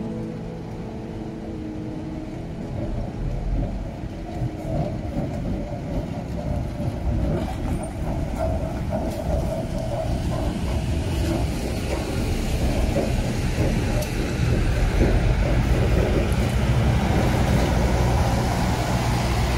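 Diesel work locomotives hauling a train of subway work cars slowly past: a low, steady engine drone over the rumble of the cars rolling on the rails. It grows louder through the second half.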